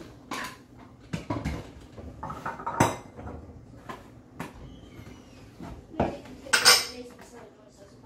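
Food-storage containers and lids being moved and stacked in a kitchen cupboard: irregular knocks and clatters, with a louder rattling clatter near the end.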